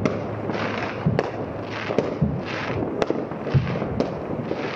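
New Year's fireworks going off over a city: a run of irregular sharp bangs, about two a second, some near and some far off, with short bursts of hissing between them.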